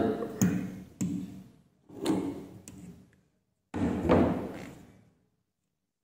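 Four short knocks and scrapes, the loudest about four seconds in, as a flat blade twists and pries the plastic filter screen out of a front-loading washing machine's water inlet valve. The filter is being removed because it is clogged, the cause of an inlet error.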